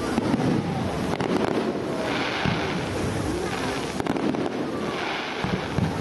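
Fireworks display: aerial shells bursting with repeated bangs, and hissing, crackling patches that come back every few seconds.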